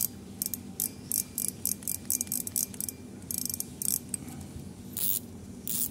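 Shimano Ultegra spinning reel's drag clicker ticking in irregular quick runs as the spool is turned by hand. The clicks are not loud enough to the owner, who blames the clicker's spring for being too soft.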